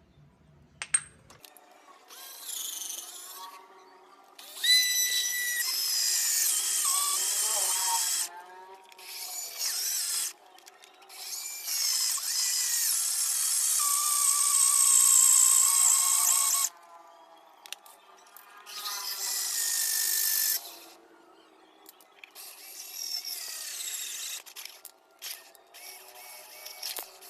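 Hand-held power tool running in about six bursts of a few seconds each, with quiet gaps between them; its pitch wavers and shifts as it works under load.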